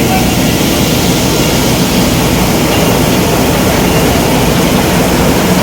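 Steady, loud rush of a moving vehicle: engine and road noise with air rushing past, as from inside a travelling bus.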